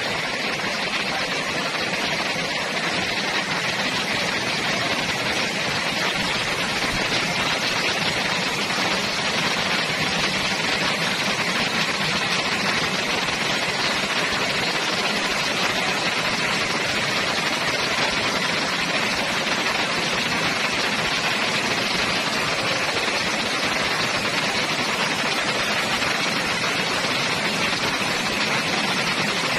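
Heavy tropical rain pouring steadily, a dense even hiss with no let-up.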